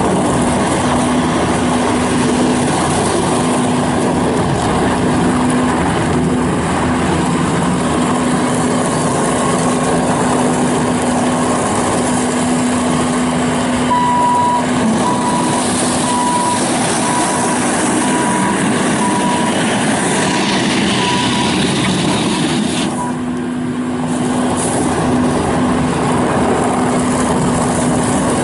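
Bobcat S750 skid steer loader's diesel engine running steadily. About halfway through, a backup alarm beeps a little more than once a second for about seven seconds. The sound drops briefly about three-quarters of the way in.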